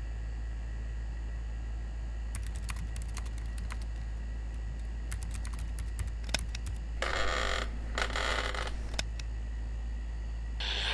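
A steady low hum with irregular light clicks of typing on a computer keyboard, starting about two seconds in, and two short rushes of noise just after the middle.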